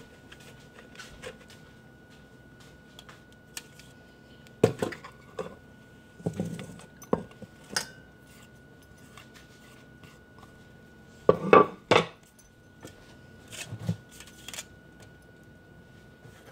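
A metal box grater and a metal mixing bowl clanking and knocking as grated vegan cheese is handled into the bowl. The knocks are scattered, with a tight cluster of the loudest clanks a little past the middle.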